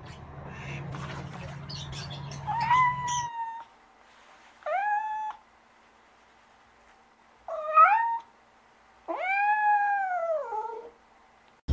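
Domestic cat meowing four times, the meows about two seconds apart. The last meow is the longest, rising and then falling in pitch.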